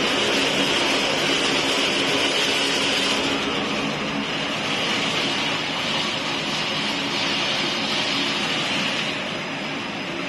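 Steady machine noise from a running pet-food baking oven line, its fans and conveyor, with a low steady hum under an even hiss.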